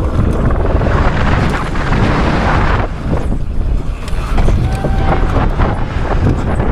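Wind rushing over a helmet-mounted camera's microphone as a mountain bike descends a steep dirt slope at speed. The tyres skid on loose dirt, with scattered knocks from the bike and ground. The rush eases briefly about three seconds in.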